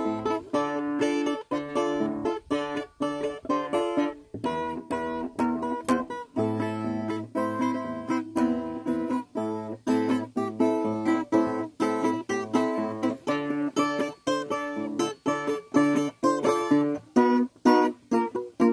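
Background music of acoustic guitar, plucked and strummed notes in a steady rhythm.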